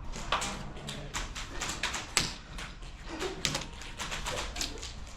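Airsoft guns firing in irregular shots and short strings of pops, some nearer and louder than others, the loudest about two seconds in.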